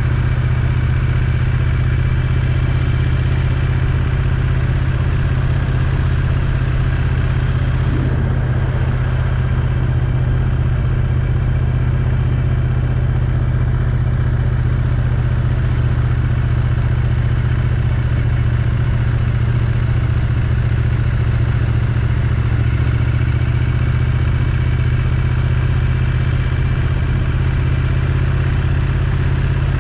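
Triumph Street Twin's 900 cc parallel-twin engine running steadily at a constant cruising speed through its stock exhaust, heard from a helmet chin mount.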